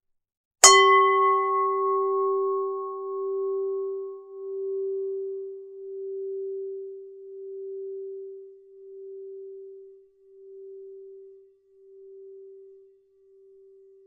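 A Buddhist standing bell (struck bowl) hit once with a mallet just under a second in: a bright ring at the strike whose high tones die away within a few seconds, leaving one low tone that wavers as it rings on and slowly fades over more than ten seconds.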